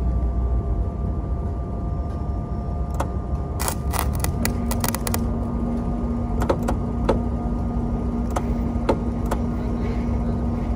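Gasless flux-core welding arc on steel, crackling in short bursts: a dense run of crackles near the middle, then single sharp ones. Underneath runs a steady machine hum, and a steady low tone joins about four seconds in.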